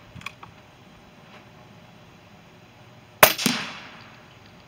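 A single shot from an Umarex Gauntlet .25 PCP air rifle: a sharp, loud report about three seconds in that dies away over about a second, with a quieter second knock right after it. There are a few faint clicks near the start.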